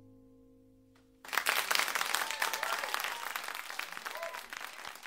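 The last chord of a live song rings out and fades, then about a second in a concert audience starts applauding and cheering, with a few whistles.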